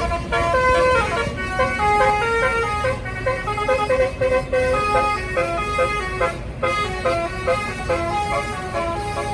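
A bus's basuri telolet horn playing a fast melody of short, stepped notes over the rumble of a running engine.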